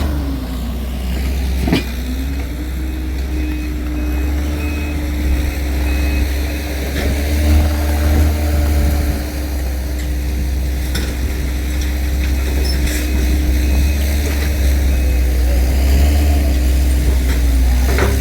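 Heavy truck engine running with a deep rumble, its pitch climbing about two seconds in and then holding steady at raised revs, while a reversing beeper sounds in two runs of short evenly spaced beeps.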